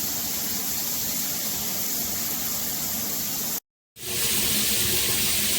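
A FASTRAS high-pressure LED shower head spraying water in a steady rush. The sound cuts out completely for a moment about three and a half seconds in, then resumes a little louder.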